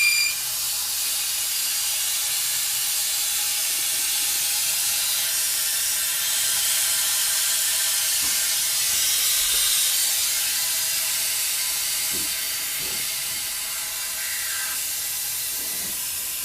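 Compressed air rushing through a venturi coolant vacuum-fill tool, a steady hiss as it pulls a vacuum on a car's cooling system. It eases slightly in the second half.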